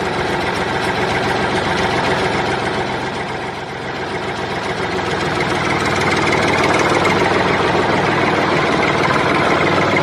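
A diesel tractor engine running steadily with a knocking chug, a sound effect standing in for the toy tractor. It dips slightly partway through, then grows a little louder.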